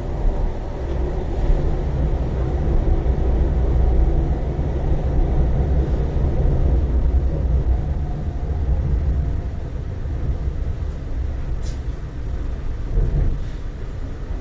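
Interior of a moving MTR East Rail Line R-Train, a Korean-built Hyundai Rotem electric multiple unit: the steady low rumble of the train running on the rails, with a faint steady hum. There is a single brief click near the end.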